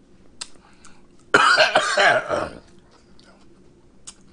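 A man coughs hard while eating, one loud rough cough with throat clearing lasting about a second, starting a little over a second in. Faint clicks of chewing come before and after it.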